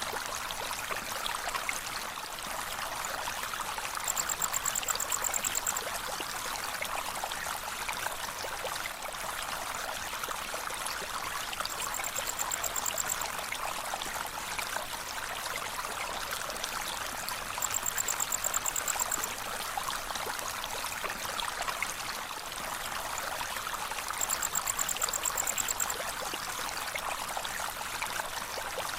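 Steady rushing and splashing of a gentle waterfall, with the soft crackle of a fire. Four times, for about two seconds each, a high, fast-pulsing trill sounds over it.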